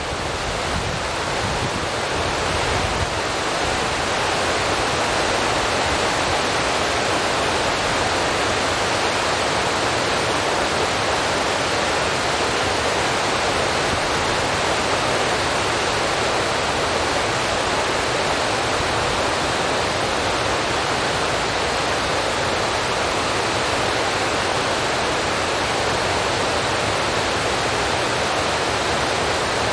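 A steady, even hiss that swells slightly over the first few seconds and then holds unchanged, with a low rumble fading out early on.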